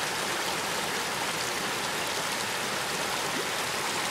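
Creek water rushing steadily under a footbridge: an even, unbroken hiss.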